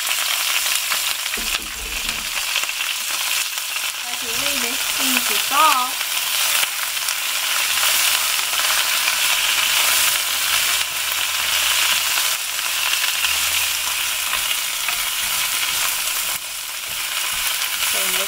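Bok choy sizzling steadily in a frying pan of hot oil and ginger as it is stir-fried.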